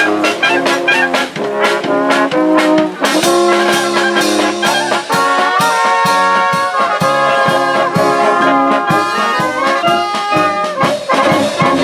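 Folk brass band (dechovka) playing a tune: trumpets and tuba carrying the melody and bass over a steady drum beat.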